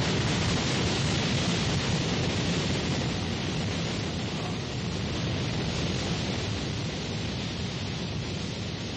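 Animated energy-blast explosion sound effect: a continuous rushing roar that slowly dies away.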